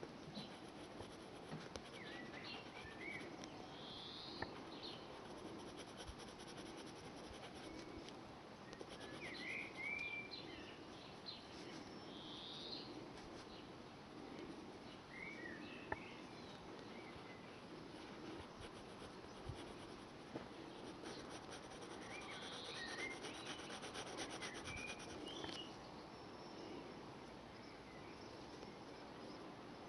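Faint scratching of a coloured pencil on paper, with birds chirping now and then in the background.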